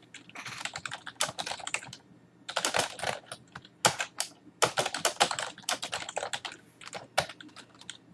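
Typing on a computer keyboard: quick runs of keystrokes in several bursts with short pauses between them.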